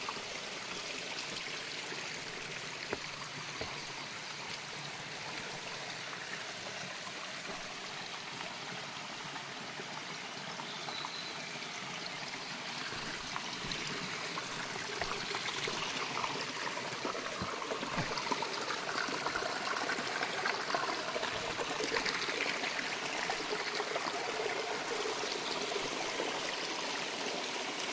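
A small stream trickling and splashing over rocks and into shallow pools, a steady rush of water that grows louder about halfway through.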